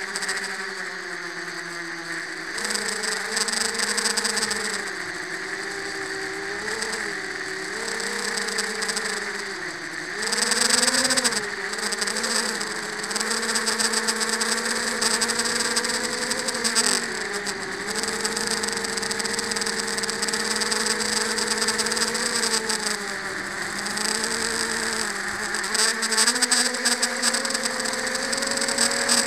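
FPV racing quadcopter's brushless motors and propellers whining, recorded on board, the pitch rising and falling constantly with the throttle, with a sharp surge about eleven seconds in.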